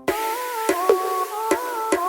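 Electronic background music: a synth melody of held notes stepping up and down in pitch, with sharp percussive clicks, starting abruptly.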